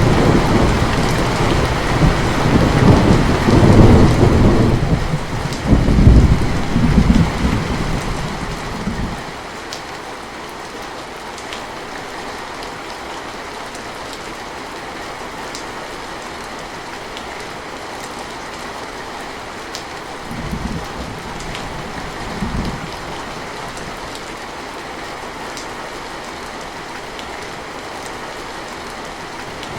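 Steady rain with a long rolling rumble of thunder that fades out about a third of the way in. Two shorter, fainter thunder rumbles follow a little past the middle.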